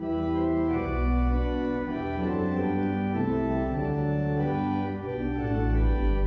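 Organ playing a hymn in held chords that change about every second, over a deep bass line.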